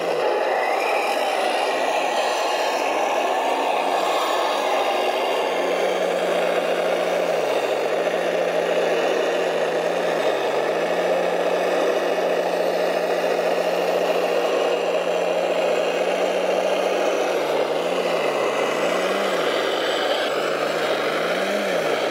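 Radio-controlled 1:14 model trucks working in mud: a steady engine-like hum whose pitch dips and comes back up a couple of times, then several times in quick succession near the end, over a constant whir and rattle of the models' drives.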